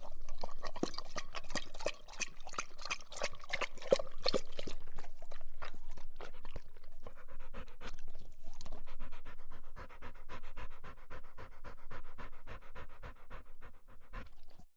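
A dog drinking water, lapping with its tongue in a quick, steady run of wet laps that stops abruptly near the end.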